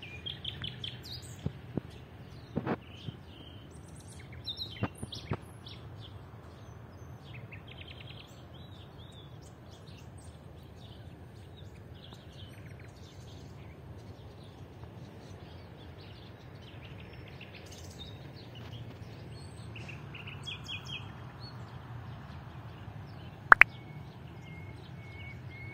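Small birds chirping and calling on and off over a steady outdoor background noise, with a few short sharp clicks, the loudest near the end.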